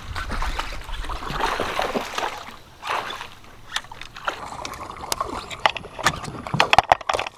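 Water splashing and sloshing at the surface as a bass takes a topwater rat wake bait and is hooked, with a flurry of sharp splashes and knocks near the end.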